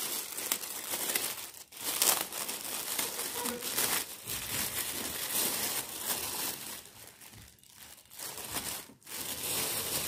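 Thin polythene bag crinkling and rustling as it is handled and pulled off a pair of sneakers, quieter for a moment about three-quarters of the way through.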